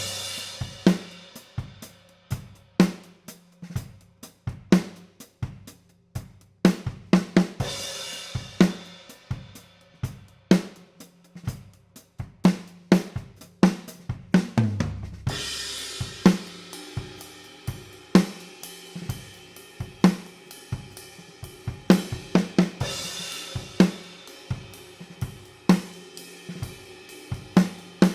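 Drum kit playing a steady groove, heard through overhead microphones with no EQ or compression: snare and bass drum hits under hi-hat and cymbal wash. Cymbal crashes come about every seven to eight seconds.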